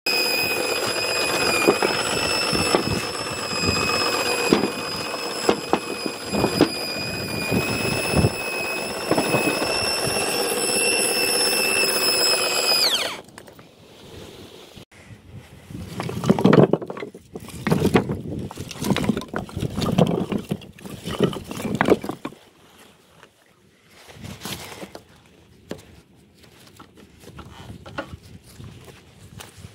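Bosch corded drill, clamped down as the drive of a homemade conveyor belt, running at speed with a steady high whine as it turns the belt's drive roller. About thirteen seconds in it is switched off and the whine drops quickly away. Quieter scattered knocks and rustles follow.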